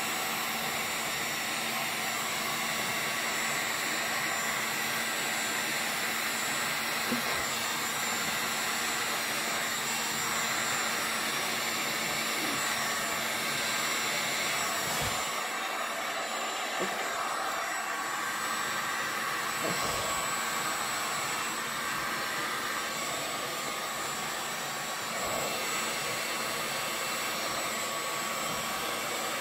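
Handheld hot-air blower running steadily over wet epoxy resin: an even rush of air with a faint constant whine.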